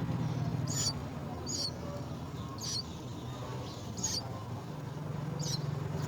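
Chicks in a nest giving short, high squeaky chirps: five in all, about a second apart. A steady low hum runs underneath.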